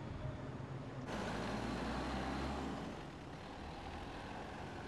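Truck engine running: a steady low hum, joined about a second in by a rushing hiss that starts abruptly and eases a little about three seconds in.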